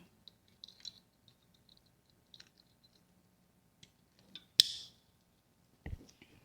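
Small clicks and rustles of plastic electrical connectors and wiring being handled, with one sharp click about two-thirds of the way in and a dull thump near the end.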